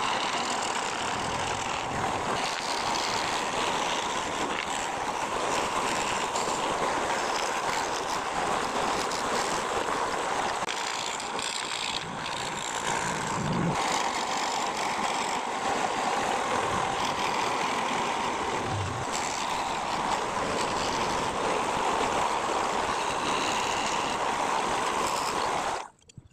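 A woodworking power tool running steadily with an even, noisy sound, cutting off suddenly near the end.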